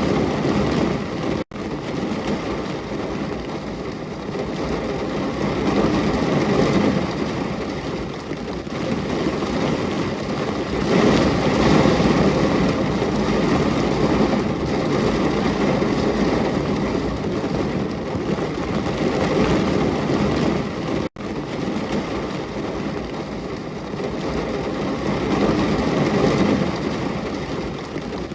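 Heavy rain falling steadily, a dense rushing hiss that swells and eases. It cuts out for an instant twice, about a second and a half in and again about two-thirds of the way through.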